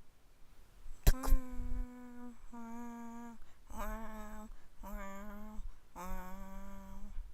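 A person's voice humming five held notes, each a little lower than the last, standing in for the scene's music or sound effects. A sharp click comes about a second in, just before the first note.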